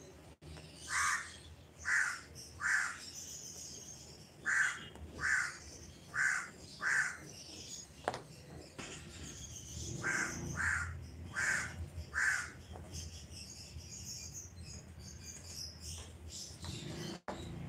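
Crows cawing: about a dozen short, harsh caws, singly and in pairs, dying away after about twelve seconds.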